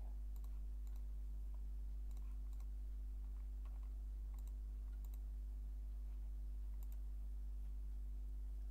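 Computer mouse clicking: a handful of faint, scattered clicks, some in quick pairs, over a steady low hum.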